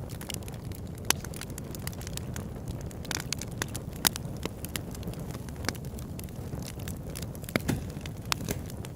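Campfire crackling: irregular sharp pops and snaps over a steady low rumble, with two louder pops about a second in and about four seconds in.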